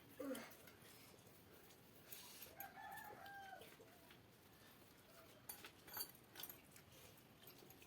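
A rooster crowing once, faint and in the distance, about two and a half seconds in; the crow is held for about a second and falls at the end. A few short sharp clicks and knocks come around six seconds in.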